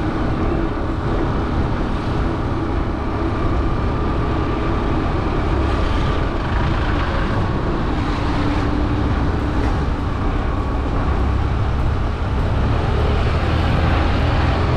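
Motorbike on the move at a steady speed: engine running under steady road noise.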